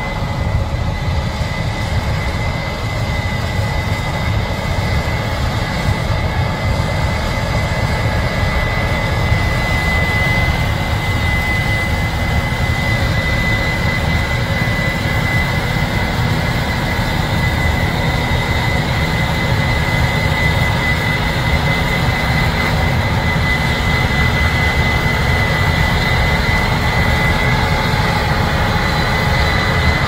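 Case IH 8230 Axial-Flow combine harvesting soybeans: its diesel engine and threshing machinery running steadily under load, a low rumble with a steady high whine on top.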